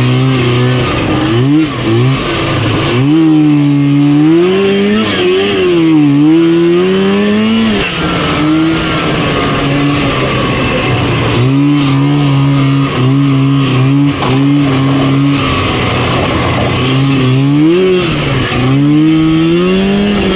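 Rotax 503 two-cylinder two-stroke snowmobile engine running hard, its revs swinging up and down repeatedly. Around the middle it holds a steady pitch broken by several brief dips, then climbs again near the end.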